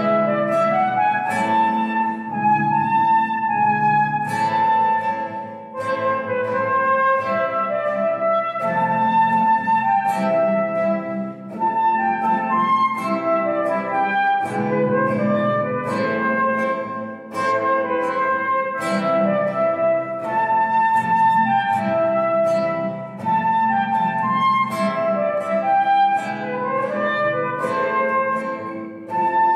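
A concert flute and a nylon-string classical guitar play a duet. The flute carries the melody over plucked guitar accompaniment, in phrases about six seconds long with short breaths between them.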